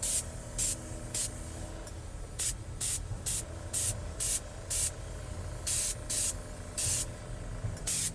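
Spray gun hissing in about a dozen short bursts as leather dye is lightly dusted onto a seat bolster, a steady low hum underneath.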